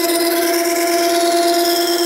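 Makita 9820 electric water-stone sharpener running with a steady hum while a steel plane iron, clamped in a jig, is ground on its coarse 120-grit wheel, giving a continuous scraping hiss. This is rough grinding to re-establish the bevel at about 25 degrees.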